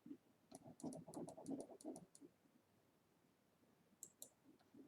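Faint clicking at a computer's mouse and keyboard: a quick run of clicks over the first two seconds, then a pair more near the end.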